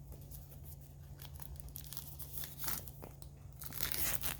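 Plastic shrink wrap being torn open and crinkled off a Blu-ray case, in a run of short irregular rips and crackles that grow louder and busier near the end.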